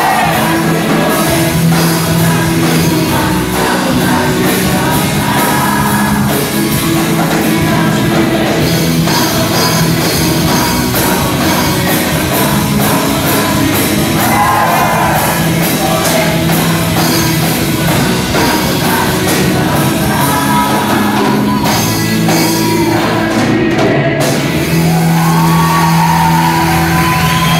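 Live worship band playing a rock-style song with electric guitars, drums and keyboard, loud in a large hall, with a singer's voice coming in at intervals.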